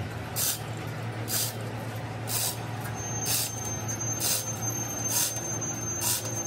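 Manual chain hoist being hauled hand over hand, its chain rattling in a short burst about once a second as the heavy excavator bucket is lifted, over a steady low hum.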